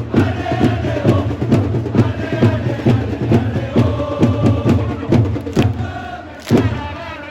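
Football supporters chanting together in unison to a steady beat of drums.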